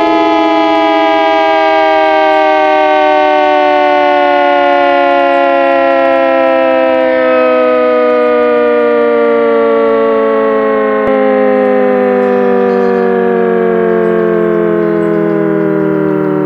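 ACA Hurricane MKII outdoor warning siren sounding loudly, several tones together, with the pitch falling slowly and steadily as it winds down.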